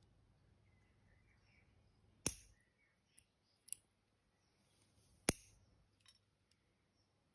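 Toenail clipper snapping through toenails: two sharp clips about three seconds apart, with a few fainter clicks between them.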